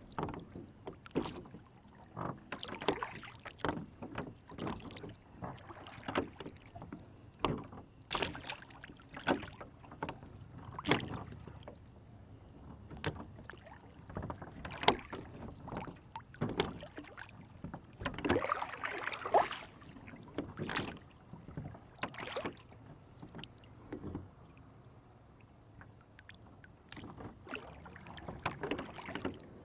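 Water splashing and lapping against a small rowboat on a lake, in short irregular slaps and knocks about once a second, busiest about two-thirds of the way through.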